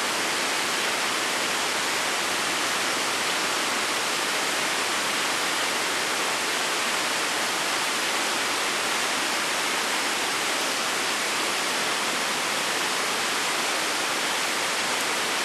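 Steady, even hiss, like rushing water, with no distinct events.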